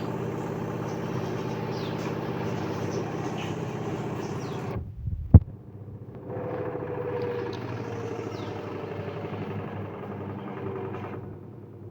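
Washing machine running with a steady motor hum. It cuts off abruptly about five seconds in, a single sharp click follows, and the hum starts again about a second later.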